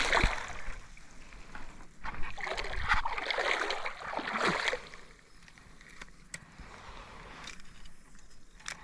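Creek water sloshing and splashing in uneven swells, loudest from about two seconds in until nearly halfway through, then settling to a faint steady running-water background with a couple of small sharp clicks.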